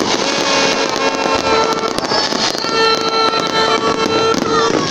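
Aerial fireworks bursting and crackling in quick succession, over music with long held notes.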